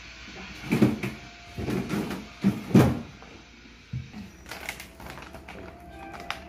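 Knocks and clatter of kitchen things being handled and set down on a counter, with several loud bangs in the first three seconds, then lighter handling noises.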